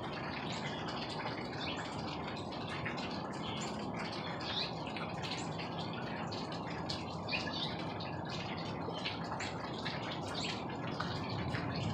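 Small birds chirping over and over over a steady low rumbling noise.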